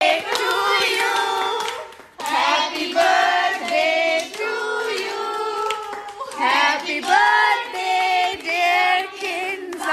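A group of girls singing together, with hands clapping along. The singing breaks off briefly about two seconds in.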